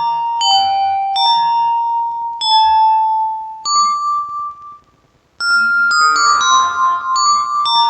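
Yamaha PSR-36 keyboard playing a bell-like melody of single notes through the Vivlex Time Maker delay pedal set to its Tremolo delay type. The notes stop briefly about five seconds in, then start again in a quicker run.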